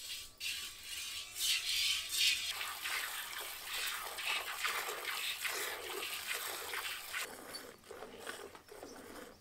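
A cow being milked by hand: jets of milk squirting into a steel pot in quick repeated strokes, hissing into the froth.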